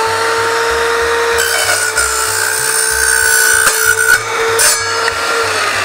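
Evolution R210 compound mitre saw running at full speed with a steady motor whine; from about a second and a half in, its multi-purpose blade cuts through thin metal ducting for about three seconds, adding a harsh high-pitched scraping. Near the end the motor is switched off and the whine falls in pitch as the blade spins down.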